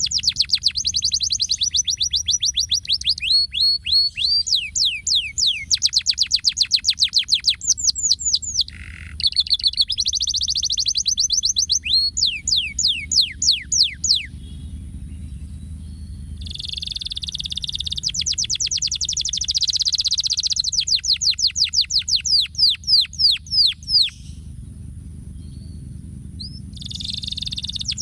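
Domestic canary singing long phrases of fast rolling trills and rapid runs of quick falling notes, pausing twice, over a faint low steady hum.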